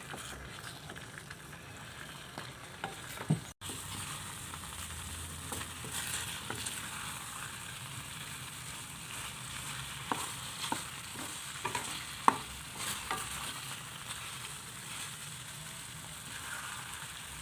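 Chicken pieces sizzling in a pan of boiling sauce, a steady hiss with occasional light clicks.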